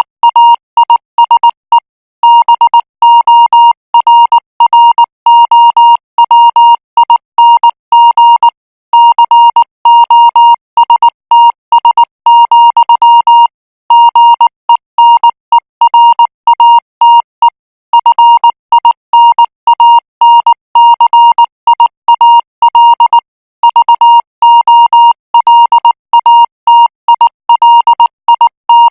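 Morse code practice signal sent at 18 words per minute: a single high beep keyed on and off in dots and dashes, with short pauses between letters and words.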